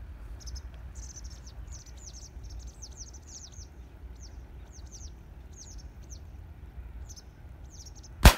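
Small birds chirping in quick, high, downward-sweeping calls over a low steady rumble. Near the end comes a single sharp, loud shotgun shot.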